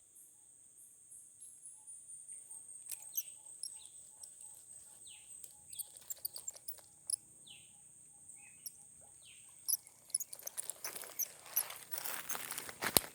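Steady high-pitched drone of insects with a bird giving short falling calls every second or so. From about ten seconds in, a stretch of rustling with sharp clicks.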